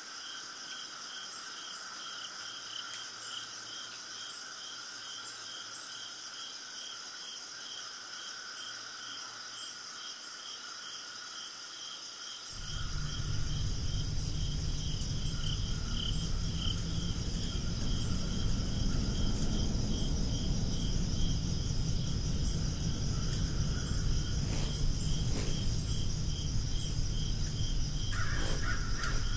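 Insects chirping steadily, with an evenly pulsing chirp of two or three beats a second over a high continuous drone. About twelve seconds in, a low rumble of noise comes in and stays, louder than the insects.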